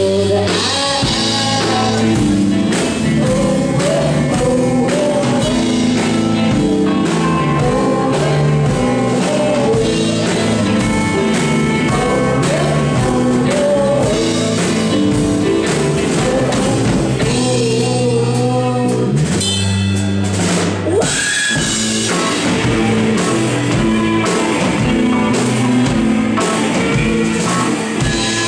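Live rock band playing: drum kit, electric guitars and keyboard, with vocals over them.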